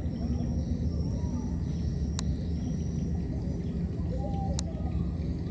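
Outdoor ambience: a steady low rumble with a faint high steady tone, a few faint short chirps, and two sharp clicks, one about two seconds in and one near four and a half seconds.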